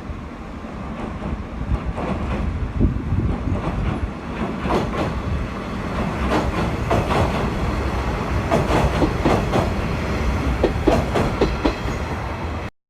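KiHa 48 diesel railcars running past, wheels clacking over rail joints in irregular clusters over a steady low rumble. The sound cuts off suddenly just before the end.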